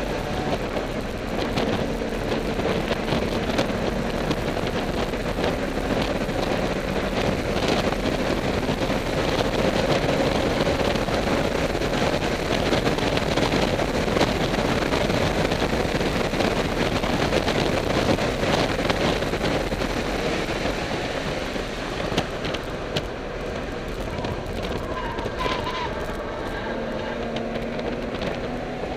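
BMW car's engine heard from inside the cabin, running hard at speed with wind and tyre noise. Its pitch climbs slowly through the first ten seconds, eases off about twenty seconds in, and rises again near the end.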